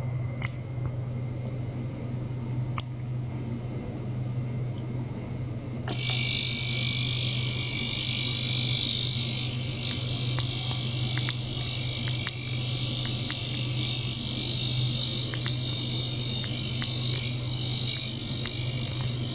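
Ultrasonic cleaner bath running over a steady low hum; about six seconds in, a sudden high-pitched hiss with several steady whining tones and faint crackling ticks sets in and holds.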